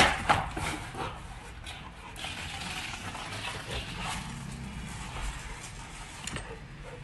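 Rottweiler worrying a rubber tyre: a sharp knock right at the start and a few smaller knocks, followed by the dog's rough breathy noises.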